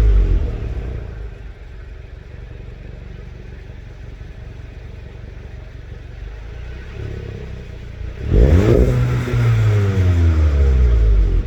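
Stock 2020 Volkswagen GTI's turbocharged 2.0-litre four-cylinder engine: revs falling back to a steady idle, then one quick blip of the throttle about eight seconds in, with the revs sweeping down to idle again.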